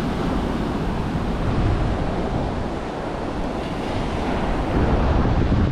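Surf breaking on a sandy beach, a steady rush of waves with wind buffeting the microphone, swelling slightly near the end.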